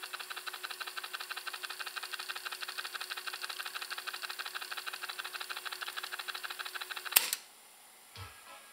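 JVC KD-X2 cassette deck fast-winding a tape forward: the transport and spinning reels make a fast, even fluttering rattle with a faint steady hum. About seven seconds in the mechanism stops with a sharp loud clunk.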